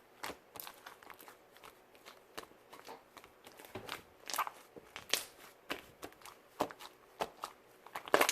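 Green fluffy slime being squished and poked by hand, giving irregular sticky pops and crackles as air pockets burst, with louder pops about four, five and eight seconds in.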